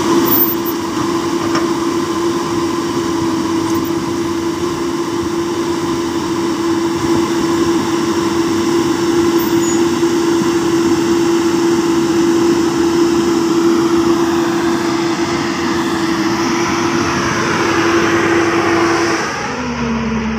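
Diesel engine of a LiuGong crawler excavator running steadily close by, with a strong steady hum over the engine noise. Near the end the sound drops to a lower, steadier hum.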